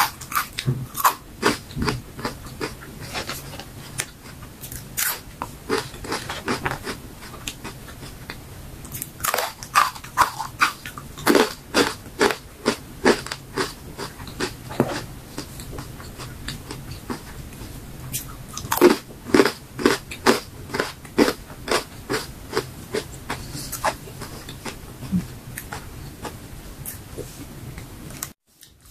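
Close-up crunching and chewing of crisp fried fruit and vegetable chips, in bursts of sharp crunches with softer chewing between, stopping just before the end.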